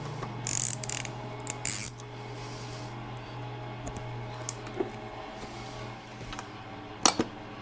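Hand-tool and parts handling on a small generator engine: a few short scrapes and rustles in the first two seconds, light clicks, and a sharp double click near the end, over a steady low hum.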